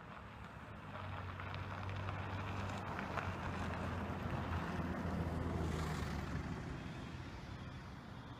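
A motor vehicle passing by: a low engine hum and road noise swell over several seconds, loudest about five seconds in, then fade away.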